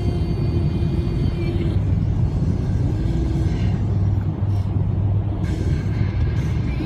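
Steady low rumble inside a car's cabin, the road and engine noise of the car driving, with music playing under it.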